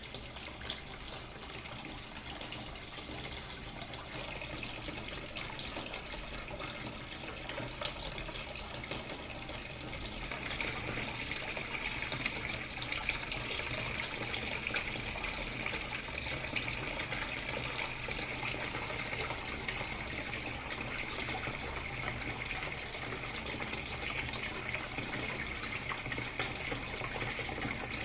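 Water falling and splashing steadily from a small homemade wheel-style garden waterfall fountain. The flow grows louder and brighter about ten seconds in.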